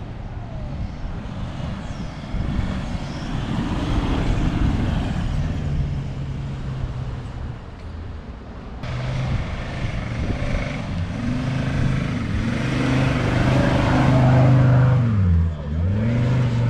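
Four-wheel-drive engines pulling up a soft sand track, running steadily under load with tyre and wind noise. Near the end the revs drop sharply and come back up twice as the throttle is lifted and reapplied.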